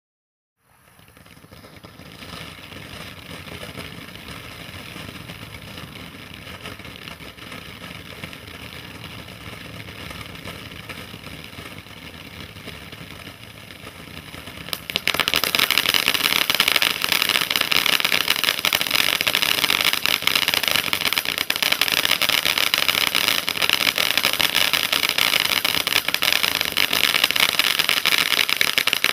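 Shell Shock ground fountain firework burning with a steady hiss as it sprays sparks. About fifteen seconds in it turns suddenly much louder and harsher, a dense crackling spray as a more intense stage takes over.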